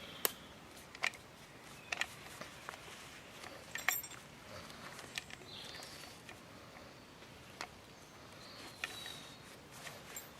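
Quiet background with scattered single sharp clicks and light knocks, about one every second or so, and a faint high chirp about four and a half seconds in and again near nine seconds.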